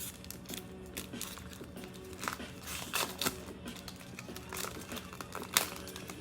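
Plastic wrapper of a 2021 Panini Mosaic Soccer card pack being torn open and crinkled by hand: irregular crackling, with the sharpest rip about two thirds of the way through.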